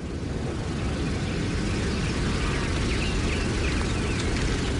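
Steady outdoor background noise, a low rumble with hiss, swelling slightly over the first second. Faint bird chirps come in the middle.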